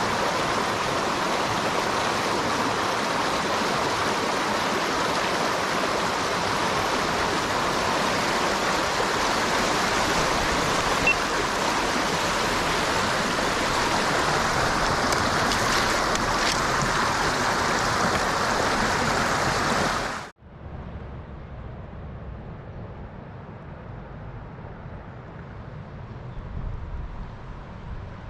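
Mountain stream water rushing in a loud, steady hiss, which cuts off suddenly about two-thirds of the way through, leaving a much quieter low hush.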